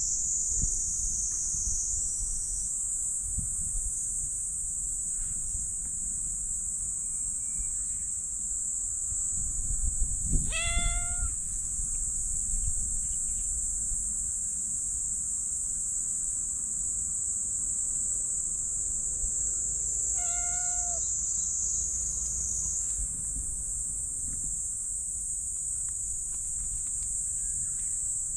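Black cat giving two short meows, about ten seconds apart, over a steady high-pitched insect drone and a low rumble on the microphone.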